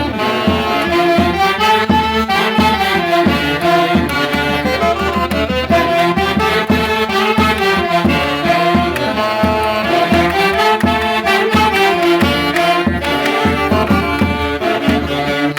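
Orquesta típica music from Peru's Mantaro valley: reed and wind instruments, saxophones among them, playing a melody together over a steady low beat.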